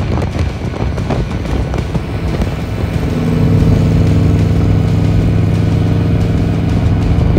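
Turbocharged LS1 V8 engine running, uneven at first and then louder and steady from about three seconds in.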